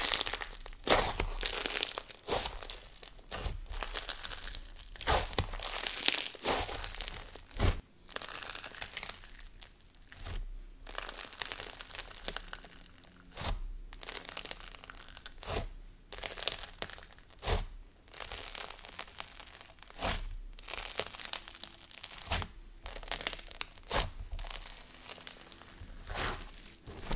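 Microfloam slime with snow fizz being squeezed, folded and pressed flat by hand, giving a sizzly crunch of crackling and crinkling in repeated squishes about every second or two, louder in the first several seconds.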